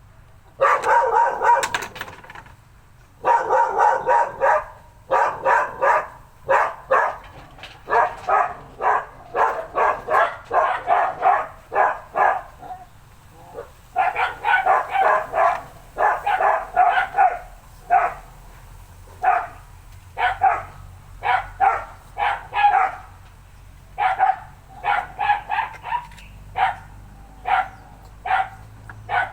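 A dog barking over and over in quick runs of barks, with short pauses between the runs.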